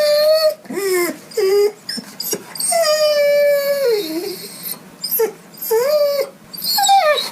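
A dog whining and crying in a run of high-pitched whimpers, mostly short, with one long whine about three seconds in that drops in pitch as it ends.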